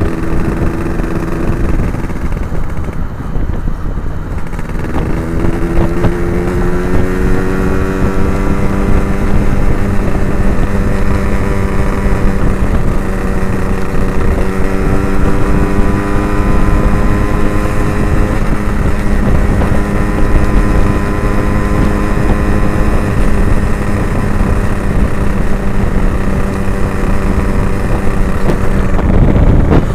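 Yamaha RX King 135cc two-stroke single running through an Abbox C20 aftermarket exhaust while being ridden. The engine note eases off about two seconds in, picks up again with a rising pitch about five seconds in, and then holds at a steady cruise.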